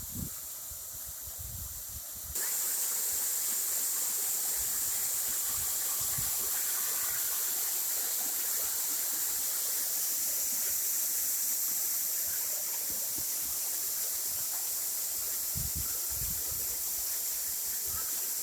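Waterfall rushing: a steady, even hiss of falling water that jumps suddenly louder about two seconds in and then holds level.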